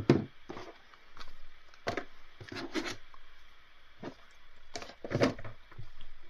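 Handling noise from a new smartphone: light knocks and taps, about nine spaced irregularly, as it is picked up and handled.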